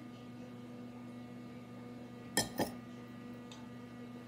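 Tableware clinking twice in quick succession about two and a half seconds in, each clink ringing briefly, over a steady low electrical hum.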